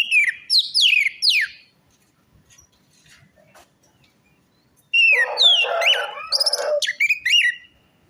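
Orange-headed thrush (anis merah) singing: a quick run of downward-sliding whistles at the start, then after a pause a longer, denser, more varied phrase from about five seconds in until near the end.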